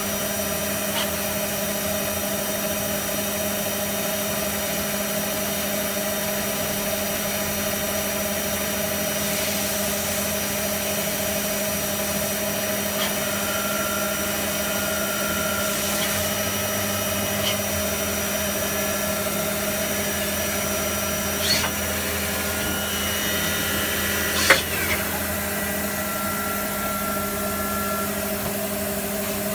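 Citizen K12E VIIP Swiss-type CNC lathe running: a steady mechanical hum carrying several constant tones, with higher whining tones that switch on and off and a few short ticks. A sharp click, the loudest sound, comes about three-quarters of the way through.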